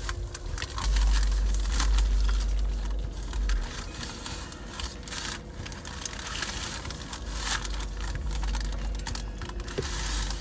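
Paper food wrappers and napkins crinkling and rustling, with many small irregular clicks and crackles, over a steady low rumble inside a car.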